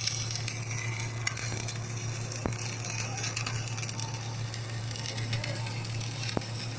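Flux-core wire welding arc, a steady crackling sizzle with scattered sharp spatter pops over a steady low hum.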